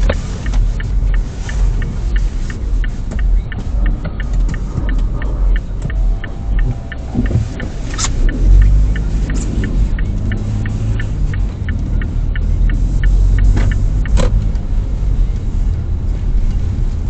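Car turn-signal indicator clicking steadily, about three ticks a second, over the low rumble of the car's cabin and road noise. Two louder knocks come about eight and fourteen seconds in.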